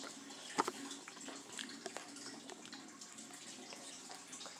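Handling noise from a phone being moved about: a knock about half a second in and a few soft rustles and ticks over a faint steady hum.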